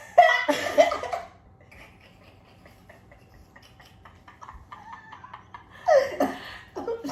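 Women laughing in a short burst, then a few quiet seconds of faint scattered clicks and taps, then another brief laugh about six seconds in.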